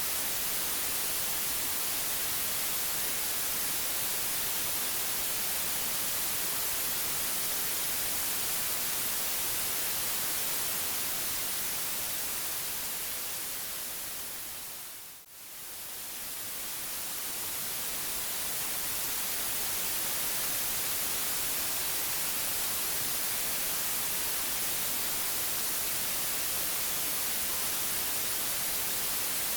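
White noise: a steady, even hiss, brightest in the treble. About halfway through it fades down briefly and swells back up to its full level.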